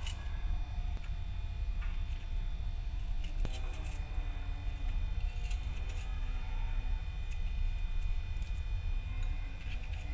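Steady low rumble with a faint high whine, under a few light clicks and rustles of hands handling strawberries in a plastic basket.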